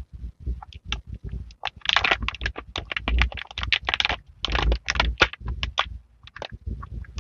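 Crinkling plastic cosmetics pouch handled by hands as a lipstick is taken out of it: dense crackling from about two seconds in until near six seconds, with scattered single clicks and soft low thumps around it.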